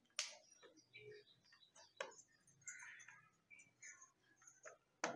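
Faint, scattered ticks and taps of hands handling a small mirror apparatus on a wooden desk, with three sharper clicks: just after the start, about two seconds in and near the end.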